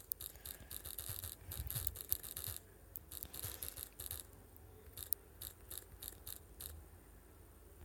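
Fingers tapping and rubbing on a phone held close to the microphone: a run of irregular short scratchy clicks and rustles over a low hum.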